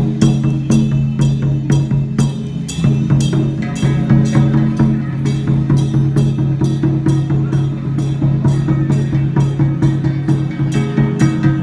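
Music with a steady drumbeat of about three strokes a second over held low notes, which shift to new pitches twice.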